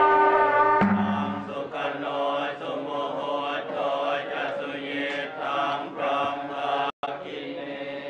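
Buddhist monks chanting prayers together in a low, wavering unison. A held, steady tone ends about a second in, and the sound cuts out for a moment near the end.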